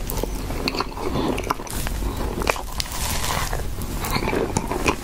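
Close-miked mouth sounds of eating soft tiramisu cake from a spoon: chewing and lip sounds with many small sharp clicks.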